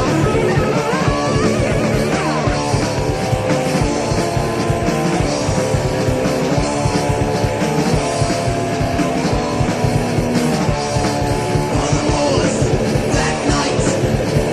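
Instrumental stretch of a heavy metal song: electric guitars over bass and drums with a fast, steady beat.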